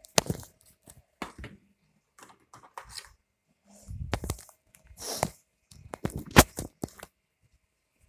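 Irregular sharp clicks, knocks and rustling, about a dozen separate sounds with short quiet gaps between them; the loudest is a sharp click about six and a half seconds in.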